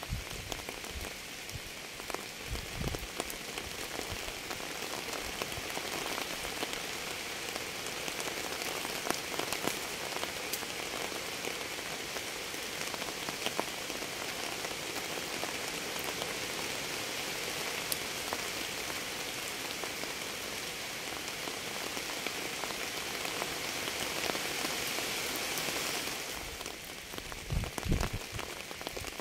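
Steady rain falling: an even hiss with many separate drops ticking. Near the end the hiss drops back and a few low thuds stand out.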